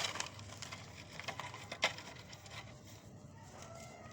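Hard pieces of set cement being crushed and crumbled, giving crunchy crackles and snaps, with one sharp crack a little under two seconds in. The crackling thins out to a few faint ticks near the end.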